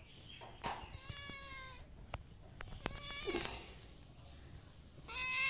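Domestic cat meowing three times: a drawn-out meow about a second in, a shorter one around three seconds, and a longer, louder one near the end, each dropping slightly in pitch.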